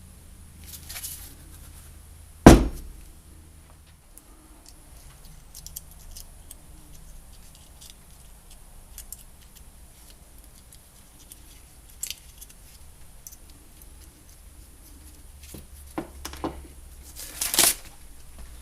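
Small parts and tools being handled on a workbench: one sharp knock about two and a half seconds in, then quiet stretches with scattered light clicks and clinks, and a few more near the end.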